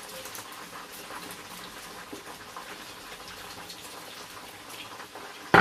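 Steady hiss of hot oil sizzling as chicken pieces deep-fry for their second frying, with sugar poured from a glass dish into a pan. Near the end, one sharp knock.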